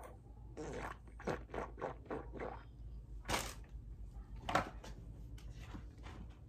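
A string of short scrapes and clicks from makeup products and containers being handled and set down close to the microphone, about ten in the first five seconds, the sharpest about three and a half and four and a half seconds in.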